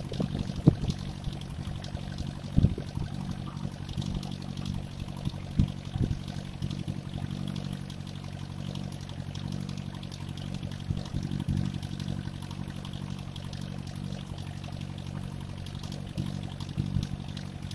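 Homemade tractor's Mercedes diesel engine idling steadily, with a few sharp knocks in the first six seconds.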